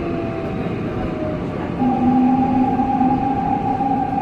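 Seoul Subway Line 6 train running with a steady rumble and a strange tonal whine over it. The whine steps up about two seconds in into a louder, steadier pair of tones, one high and one low.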